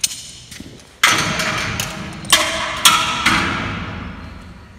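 Four sharp hammer-like strikes on steel framing against the corrugated steel bin wall, each ringing out metallically and dying away slowly.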